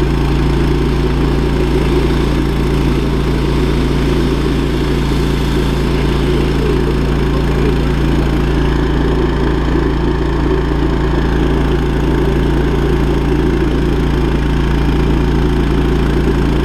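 Drain jetting machine's engine running steadily at a constant speed, with no change in pitch or level.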